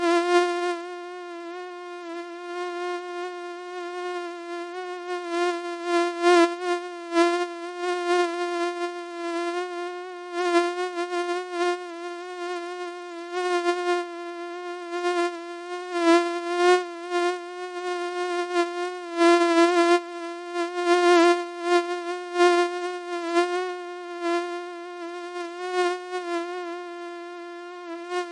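Mosquito in flight, a continuous high buzzing whine with a steady pitch that wavers slightly, swelling and fading in loudness again and again as it flies closer and farther.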